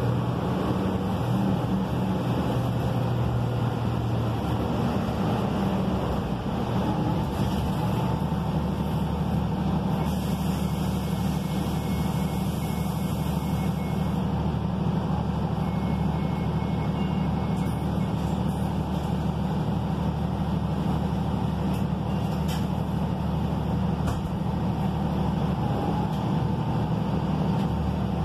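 Interior sound of a Gillig low-floor bus under way, its Cummins ISL9 diesel engine running steadily with a low hum. A high hiss runs from about ten to fourteen seconds in.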